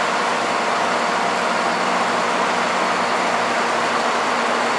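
Shibaura floor-type horizontal boring mill running: a steady mechanical hum and hiss with a few faint steady tones.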